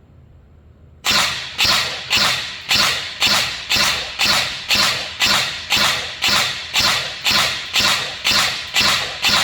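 INF M4 14.5-inch airsoft electric gun firing single shots, evenly spaced at about two a second, starting about a second in. This is a test of its replaced control circuit, which had been firing on its own the moment the battery was connected; here it fires one shot per trigger pull.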